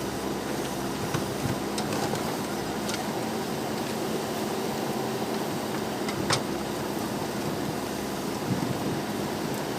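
JCB backhoe loader's diesel engine running steadily, with a few sharp knocks, the loudest about six seconds in.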